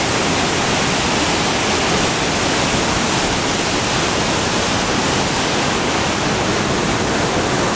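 The river Tormes in flood, its swollen brown water rushing and churning through rapids in a loud, steady wash of noise.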